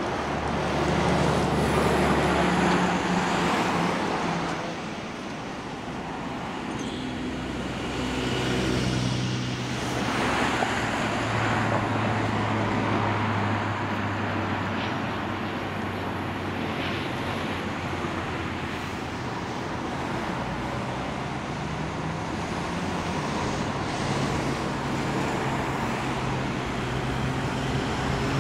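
Urban road traffic passing at the kerbside, with buses, a coach and cars driving by and engine hum and tyre noise. It swells as vehicles pass, loudest about one to four seconds in and again around nine seconds.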